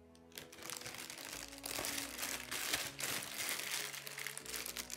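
Clear plastic bag crinkling and crackling as hands handle a round hair-brush attachment inside it and work it out, starting about half a second in.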